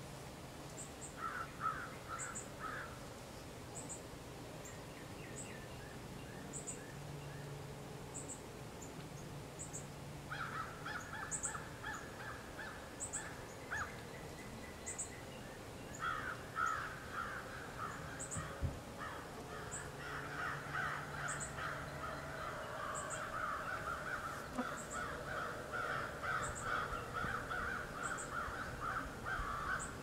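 Outdoor birds calling around a backyard feeder: thin, very high chips repeat every half second or so throughout. About a third of the way in, a dense run of rapid, harsher notes joins them, pauses briefly, then carries on through the second half.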